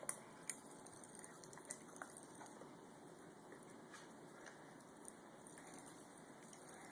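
Faint, irregular little pops and crackles of Pop Rocks candy fizzing in a baby's mouth, over a quiet hiss.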